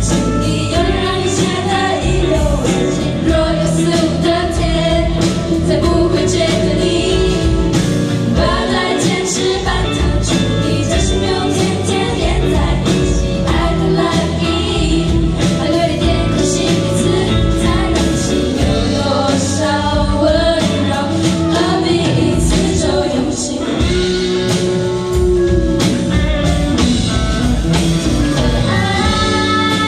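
Live amplified pop song: several female singers singing together into microphones over a live band of electric guitars, drums and keyboard.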